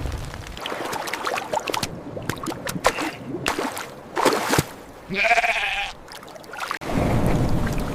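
A farm animal bleats once, a short wavering call about five seconds in, among scattered clicks and splashes, with a rush of noise starting near the end.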